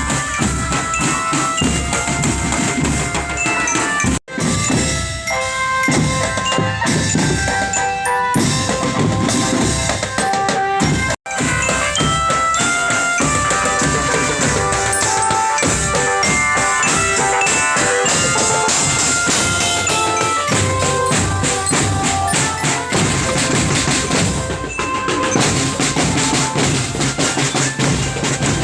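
Marching drum band playing: snare and bass drums with a melody of short pitched notes over the beat. The sound cuts out for an instant twice, about 4 and 11 seconds in.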